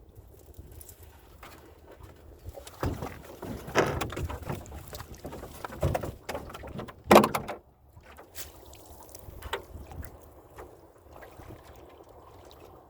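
Irregular knocks and splashing from work aboard a small fishing boat on the water, with the loudest single knock about seven seconds in.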